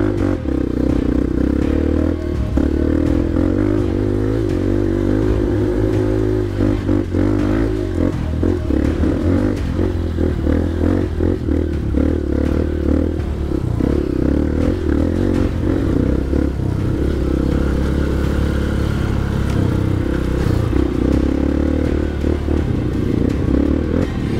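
Honda CRF150L dirt bike's single-cylinder engine running as it is ridden slowly along a rough trail, its pitch rising and falling with the throttle. Rattles and knocks come from the bike jolting over bumps throughout.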